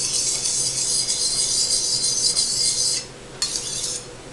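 A small hand-held sharpening stone, oiled, stroked fast along a steel kitchen knife blade: a quick rasping scrape that breaks off about three seconds in, comes back for a short stretch, and stops near the end. These are the final passes that bring up the edge.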